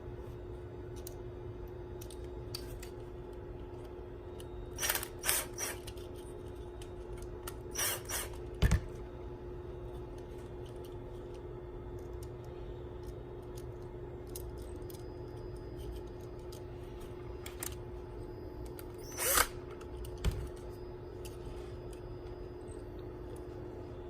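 Short scrapes and clicks of wires being handled and moved between the terminals of a push button switch, in a few brief clusters with one sharp click, over a steady faint hum.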